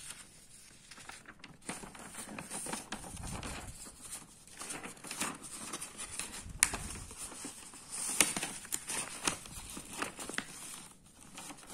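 Large paper sheets being turned over and smoothed flat by hand: irregular rustling and crinkling with a few sharp snaps of paper, the loudest about six and a half and eight seconds in.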